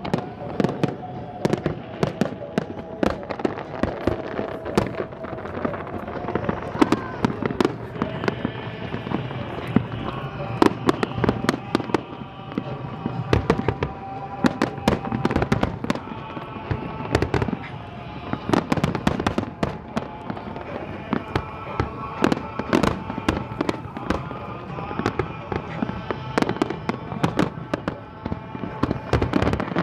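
Fireworks display going off in quick, uneven succession: many sharp bangs a second, with no let-up.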